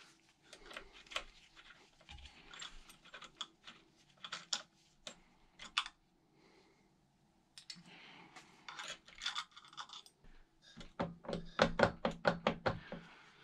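A hex key and the clip-on plastic trim at the rear wheel of a Xiaomi Mi 1S e-scooter being handled: scattered light clicks and scrapes, a short near-silent pause around the middle, and a quick run of clicks in the last few seconds.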